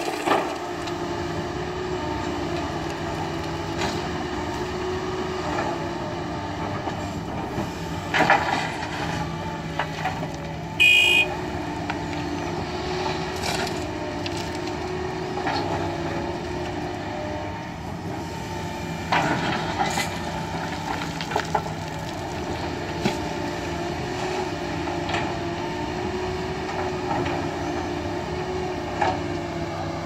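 Doosan crawler excavator's diesel engine running steadily, its pitch wavering as the hydraulics work, with rocks and gravel crashing into a steel tipper-truck bed several times as the bucket is dumped. A short high-pitched horn beep sounds about eleven seconds in.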